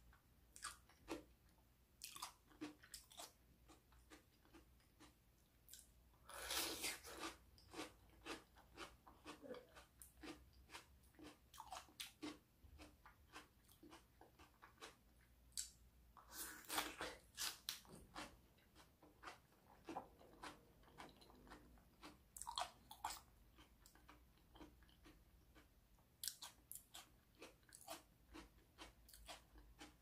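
Close-up eating sounds of a paprika (bell pepper) cup stuffed with mashed sweet potato: crisp crunching bites and wet chewing clicks, with louder crunchy bites about six and a half and seventeen seconds in.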